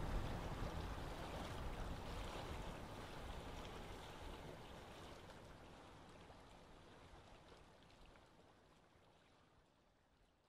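Running-water ambience, an even wash with faint drips, fading out steadily to silence.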